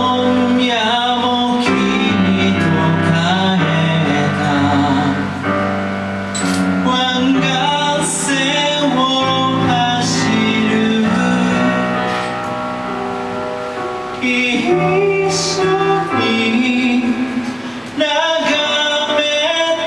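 A live pop song: singing voices over instrumental accompaniment.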